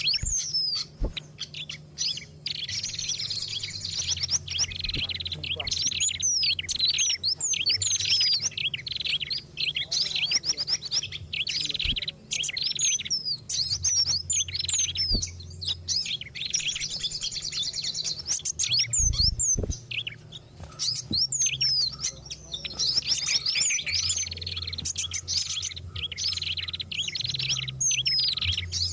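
Dense, agitated chirping and rapid whistled calls of several small songbirds overlapping, a bird-lure (pikat) recording that mixes the calls of fantail, tailorbird and other small birds. Many quick sweeping notes pile on top of one another, with brief lulls about two seconds in and near twenty seconds in, over a low hum.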